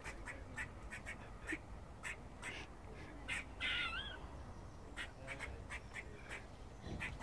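Grey squirrel alarm barking: a run of short, sharp barks, two or three a second, with one longer wavering call a little past halfway, which is the loudest sound here, then a short pause before the barks resume.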